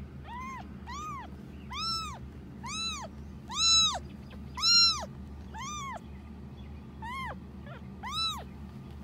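A very young kitten mewing over and over, about one high cry a second, each cry rising and then falling in pitch; two near the middle are the loudest, and the cries stop shortly before the end.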